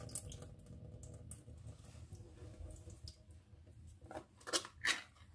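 Opened tin can of fava beans being handled and drained over a stainless steel sink: light metallic clicks and taps of the can and its lid, with a few sharper clicks near the end.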